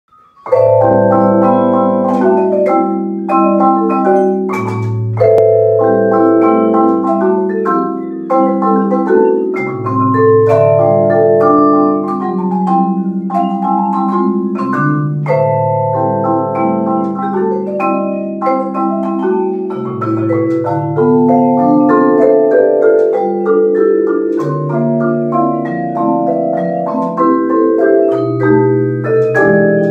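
A vibraphone and a marimba playing a duet together, struck mallet notes over ringing low bass notes, starting about half a second in.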